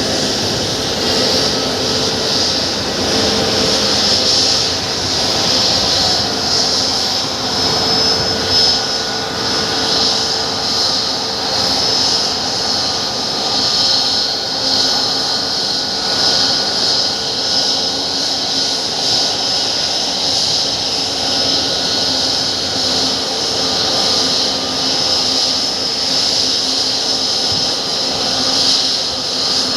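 Jet aircraft engines running at low power as the just-landed plane comes in: a steady high whine over a continuous rushing noise.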